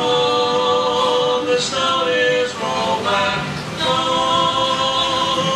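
Voices singing a worship song, holding long notes that change pitch every second or so.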